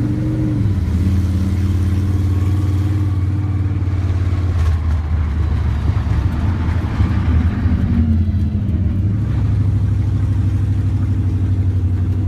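Monster truck's engine running under way, heard from inside the cab: a loud low drone that shifts pitch a few times as the truck drives, rougher and noisier through the middle.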